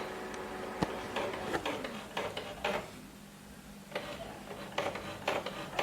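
Printer mechanism starting up after being switched back on: a sharp click, then irregular bursts of clicking and clattering as it runs its start-up cycle.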